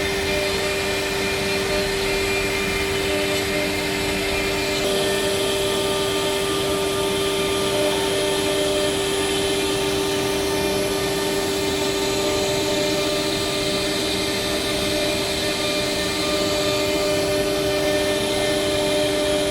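CNC milling machine cutting a 3D design: a steady high whine with overtones over a constant rushing noise, the rushing turning brighter about five seconds in.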